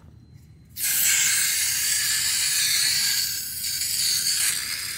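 Pressurised gas hissing loudly out of a camp stove burner as it is screwed onto its fuel canister with the stove valve left open. The hiss starts suddenly about a second in and keeps up steadily, easing slightly partway through.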